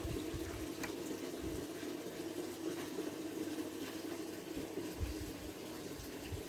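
Indoor tabletop root fountain: water trickling and splashing steadily down a small waterfall.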